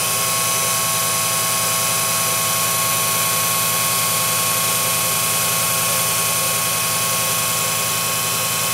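Electric-motor-driven vane air compressor running steadily under load, a constant hum with several fixed tones over a hiss, as its outlet is throttled to build delivery pressure.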